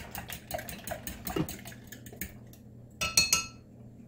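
Eggs being beaten with a metal utensil in a glass measuring cup: quick, regular clicking of metal against glass that slows and fades out after about two and a half seconds. About three seconds in comes a single louder clink of metal on glass that rings briefly.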